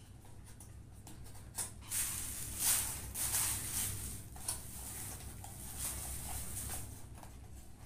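Cardboard retail box being opened by hand and the inner box slid out: dry rustling and scraping, with a few light knocks.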